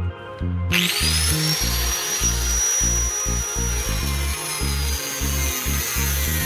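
A small high-speed power tool spins up suddenly about a second in, its high whine settling and then dropping slightly in pitch as it runs, over background music with a steady beat.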